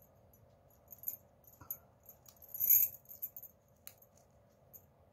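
Flat plastic craft wire crinkling and clicking against a woven plastic-wire holder as its loose ends are worked into the weave. The sound is faint and intermittent, with a louder crinkly burst a little before the middle and a single sharp click about a second later.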